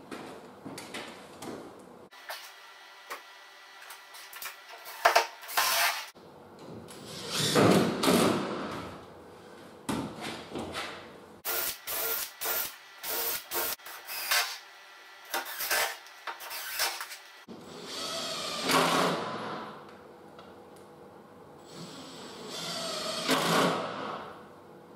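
Cordless drill-driver driving screws in several short runs, with knocks, clicks and short sharp taps between them.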